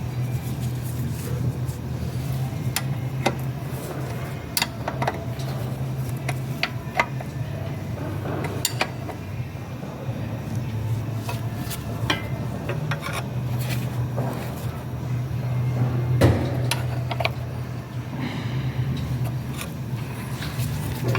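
Steady low engine hum, with scattered light metallic clicks and knocks from handling metal parts or tools.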